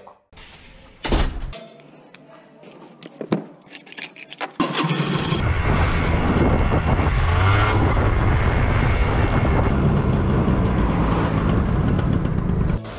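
A motor scooter running while it is ridden, its engine mixed with heavy wind noise on the microphone. Before that there are a few sharp clicks and knocks. The riding noise starts about four and a half seconds in and cuts off abruptly near the end.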